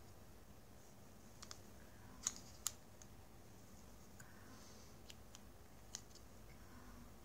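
A few small, sharp clicks and taps as a small DC motor and a plastic side-brush housing are handled and fitted together, over near silence. The two loudest clicks come close together a little over two seconds in.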